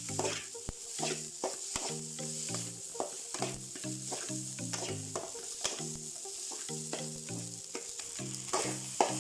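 Vegetable fried rice sizzling in a hot pan while a spatula stirs and tosses it, with repeated scrapes and knocks against the pan. A plain background music line plays underneath.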